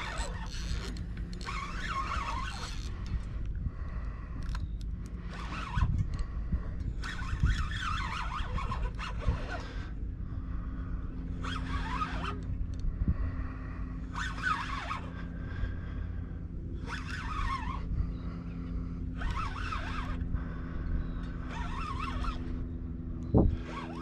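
Fishing reel being cranked in short spells, one every two to three seconds, as line is won back from a hooked tarpon, over a low steady hum.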